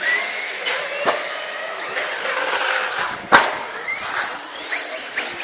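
Radio-controlled off-road car's motor whining as it drives over dirt, its pitch rising and falling with the throttle, with one sharp knock about three seconds in.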